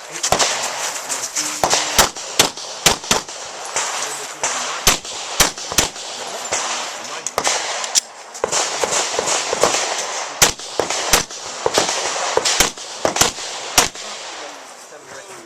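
Handgun shots fired in quick pairs and short strings, about two dozen in all, with short pauses between strings, over a steady noisy background.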